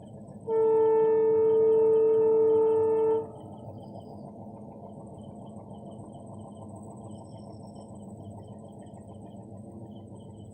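Indian local train's horn sounding one steady blast of nearly three seconds, starting about half a second in, over a low steady rumble.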